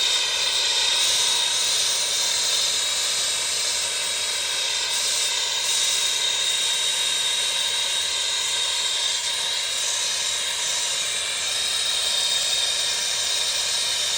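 Gas torch burning with a steady hiss and a faint high whistle-like tone.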